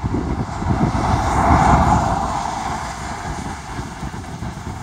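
A vehicle passing by, its noise swelling to a peak about a second and a half in and then fading, over a steady low rumble of wind on the microphone.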